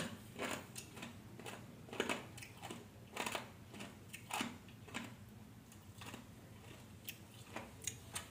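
A person chewing crisp salt-pickled small white eggplant (cà pháo): soft, irregular crunches every half second to a second.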